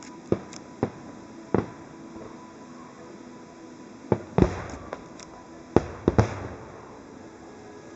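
Aerial firework shells bursting in a display: about eight sharp bangs at uneven intervals, several close together a little past the middle, the loudest trailing off in a rolling echo.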